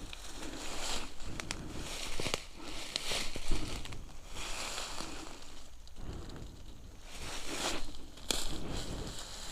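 Irregular rustling and crackling of dry vegetation, with scattered sharp snaps, as someone pushes through undergrowth searching.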